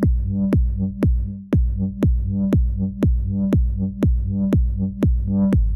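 Electronic background music with a steady beat of about two hits a second over a held bass line.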